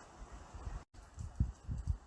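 Irregular low rumbles of wind buffeting the microphone over a steady outdoor hiss, with a brief dropout about a second in.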